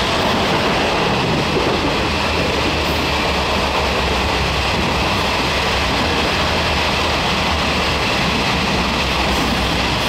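Taiwan Railway parcel train running at speed: a steady rush of track and running noise with a low hum underneath, holding at an even loudness throughout.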